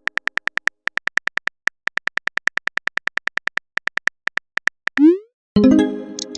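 Chat-app keyboard typing sound effect: quick electronic ticks, all at one pitch, in uneven runs. About five seconds in comes a short rising bloop as a message is sent, followed by a fuller electronic notification tone.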